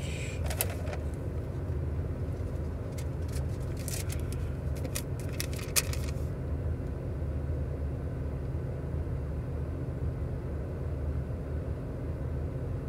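Steady low rumble inside a car cabin, with papery crackles and clicks of a receipt and food bag being handled during the first half, stopping about six seconds in.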